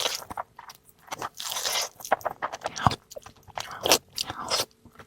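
Close-miked eating: irregular crunchy bites and chewing of food, with sharp clicks between the bites.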